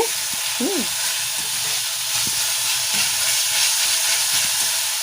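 Chopped onion, garlic, ginger and carrot sizzling steadily as they fry in a little refined oil, lightly frying so they stay half raw.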